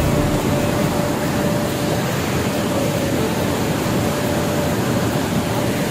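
Swollen mountain river in spate, its fast white water rushing over boulders as a loud, steady roar.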